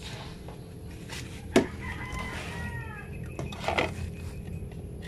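A rooster crowing about two seconds in, one call that falls in pitch at its end. It comes just after a single sharp knock, and a short clatter follows near the end.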